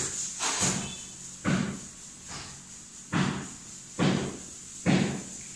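Bare footsteps on a tiled floor: about six dull, evenly spaced thuds, roughly one step a second.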